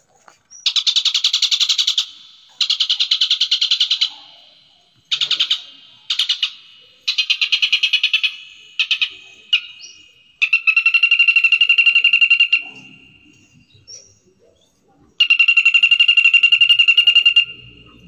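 A songbird singing a series of fast trilled phrases, each a second or two long with short gaps between, then two longer trills held at one pitch near the end: a masteran recording played to coax caged songbirds into singing.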